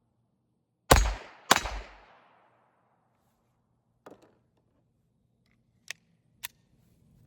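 Two shots from a Taurus TX22 .22 LR pistol about half a second apart, each ringing out in a fading echo. A few much fainter sharp clicks follow later.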